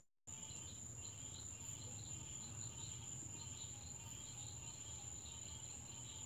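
Faint night chorus of crickets: a steady high trill with shorter chirps repeating a few times a second. The sound cuts out for a moment at the very start.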